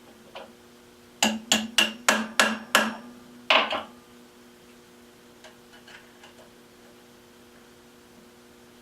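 Hammer tapping metal: six quick taps about a third of a second apart, then a harder, ringing blow a moment later, over a steady machine hum. The taps seat the index pin in a gear tooth of the rotary table.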